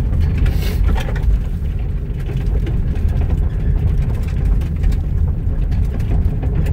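Steady low rumble of a car driving slowly on a small unmaintained rural road, heard from inside the vehicle, with faint light clicks over it.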